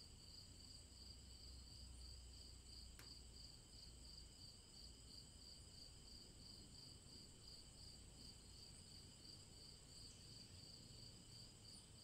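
Faint crickets chirping, a steady pulsing trill of about three pulses a second.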